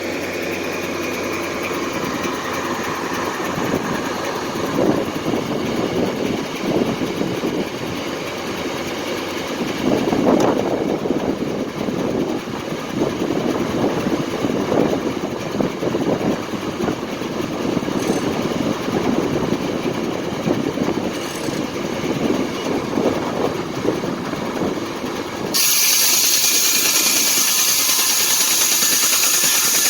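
Foley Belsaw circular sawmill running, a steady mechanical drone whose level swells and dips through most of the stretch. About 26 seconds in, the sound changes abruptly to a louder, steady hiss.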